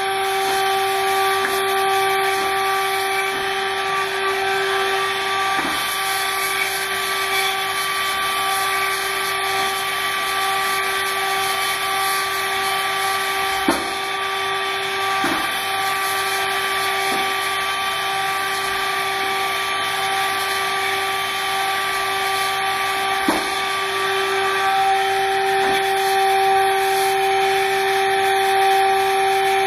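Machining spindle of the ARROW parallel-kinematic robot running steadily as it cuts a workpiece, a constant whine of several tones over a hiss. A couple of short ticks come through, one about halfway in and another some ten seconds later, and it grows a little louder near the end.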